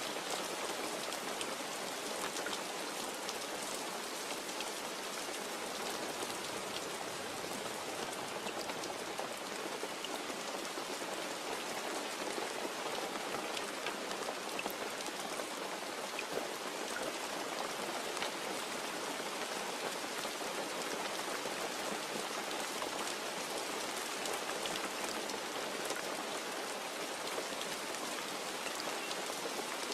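Steady rain falling, an even hiss with scattered sharp ticks of single drops striking a surface.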